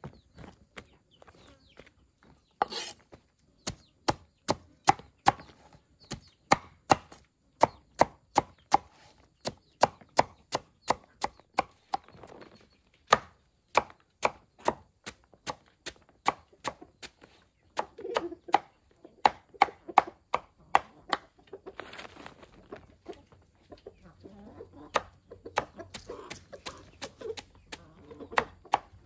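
Chopping on a cutting board: sharp, even strokes about two to three a second, with a few short pauses.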